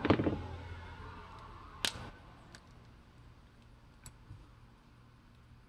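A few light, sharp metal clicks, the loudest about two seconds in and fainter ones later, as a steel tension ring is pried and pushed around a round-head ratchet's head with a pick tool.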